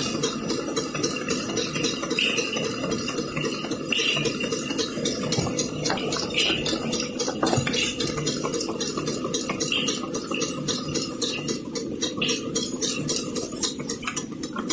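Automatic cartoning machine running, boxing 150 ml glass bottles: a steady mechanical clatter of rapid clicks over a constant hum, with the glass bottles clinking every second or two.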